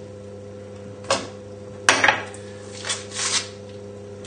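A kitchen knife laid down against a glass mixing bowl: one sharp clink about two seconds in, with a few softer knocks of handling around it, over a steady electrical hum.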